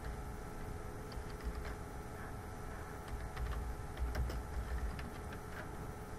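Someone typing on a computer keyboard: scattered key clicks, a few at a time, over a low steady hum.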